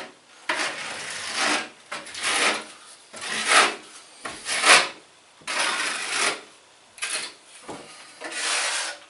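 Putty knife scraping white patching compound across a wall and against its tray, in about ten separate scraping strokes, one every second or so.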